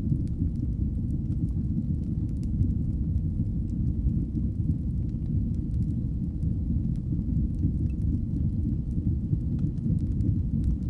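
Fire burning in a fireplace: a steady low rumble of flame with a few faint, scattered crackles.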